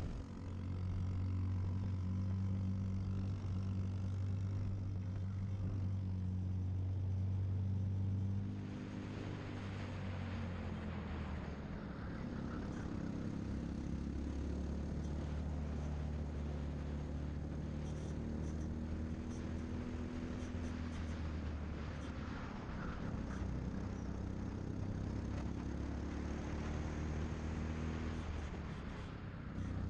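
Briggs & Stratton LO206 single-cylinder four-stroke kart engine running on track, heard on board. It holds a steady high pitch at full throttle for the first third, then drops as the throttle lifts for a corner, and climbs slowly again as the kart accelerates down the straights.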